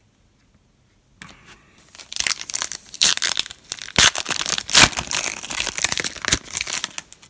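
A foil trading-card pack being torn open, its wrapper crinkling and tearing in a rapid run of crackles. It starts faintly about a second in and grows loud from about two seconds in.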